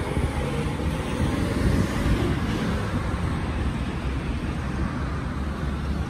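Steady rumble of road traffic passing.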